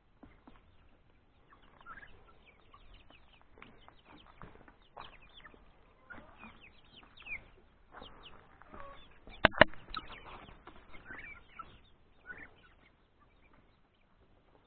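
Free-range chickens clucking and making short chirping calls here and there, with two sharp knocks close together about halfway through.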